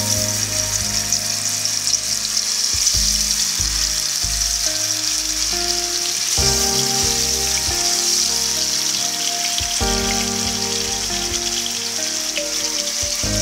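Fish pieces sizzling as they fry in hot oil in a pan, a steady dense hiss, with background music underneath.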